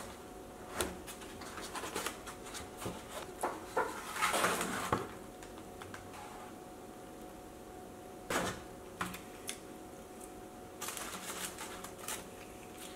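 Clamshell takeout container being opened and paper-wrapped wraps handled: clicks and scrapes of the lid and rustling deli paper in scattered bursts, with the longest rustle about four seconds in and more near the end.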